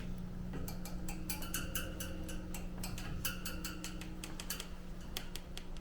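A rapid, irregular series of light clicks and ticks, several a second, thinning out near the end, over a steady low hum.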